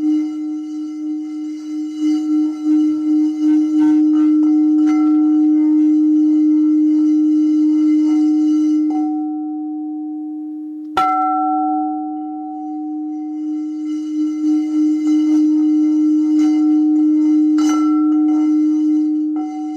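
Singing bowl sounding one steady low tone with its overtones, its loudness pulsing in waves. It fades down, is struck once about eleven seconds in and rings out, then swells again into the pulsing hum.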